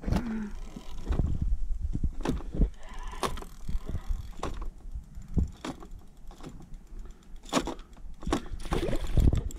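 Irregular knocks and clicks of rod and gear being handled on a plastic fishing kayak, over a steady low rumble.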